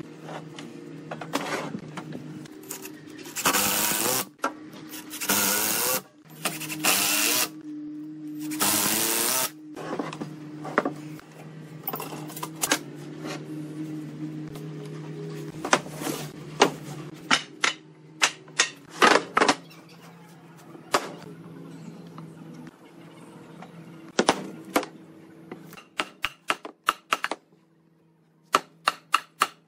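Woodworking tools at work. Under a steady motor hum come four harsh bursts of cutting or sanding noise, each about a second long, then a long run of sharp taps and knocks that comes faster near the end.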